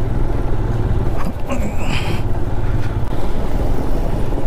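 Royal Enfield Himalayan 411 single-cylinder motorcycle engine running while riding on a rough road, with wind buffeting the microphone.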